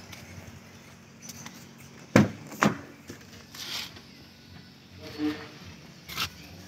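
A Proton Satria Neo's car door being opened: two sharp clicks of the handle and latch about half a second apart, then softer knocks as the door swings open.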